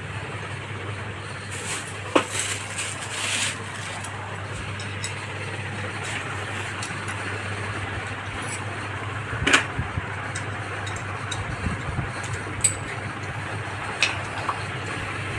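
Sewing machine motor humming steadily, with a few sharp clicks and clinks.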